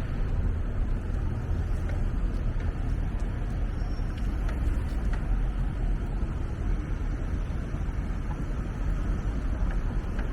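Steady city street noise: a low rumble of passing traffic with a general hiss, and no distinct events standing out.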